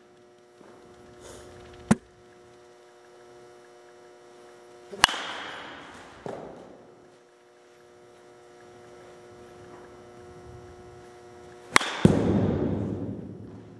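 Three sharp cracks of a baseball bat hitting pitched balls in an indoor batting cage, about 2, 5 and 12 seconds in, each dying away briefly, over a steady electrical hum.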